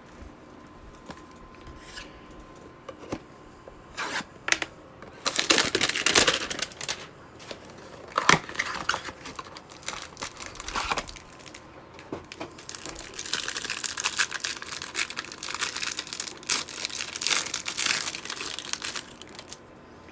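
Plastic wrapping of a trading-card hanger box being torn open and crinkled by hand, after a few light clicks: several short bursts of tearing, then a longer stretch of crinkling near the end.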